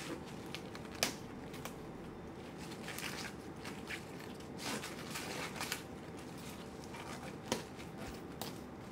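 Crisp green cabbage leaves crackling and rustling as they are handled and pulled off the head by hand, with two sharper snaps, about a second in and near the end.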